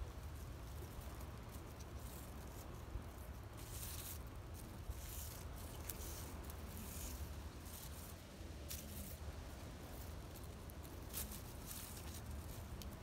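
A large dry leaf used as a cat toy rustling and scraping on the pavement in several short bursts, over a faint steady low rumble.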